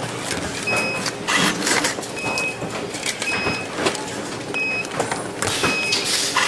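Electronics factory floor noise: a steady mechanical clatter and hiss, with several short, high electronic beeps at irregular intervals.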